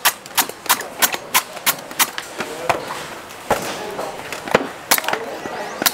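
Heavy knife chopping into coconuts in quick, sharp strokes, about three a second. There is a short gap about halfway through before the strokes resume.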